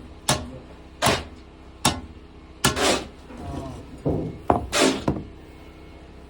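Steel rebar being handled, giving irregular sharp clanks and knocks about a second apart, with a couple of longer scraping rushes.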